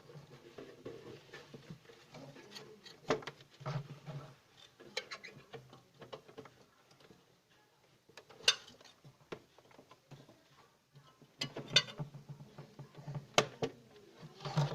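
Scattered light clicks and knocks of a no-frost fridge's plastic interior parts being handled and pushed open by hand, with a sharper click about eight and a half seconds in.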